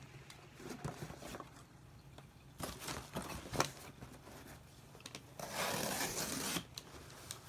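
Corrugated cardboard being folded and creased by hand into a box: rustling and scraping, a sharp crack about three and a half seconds in, and a louder scraping tear lasting about a second near the end.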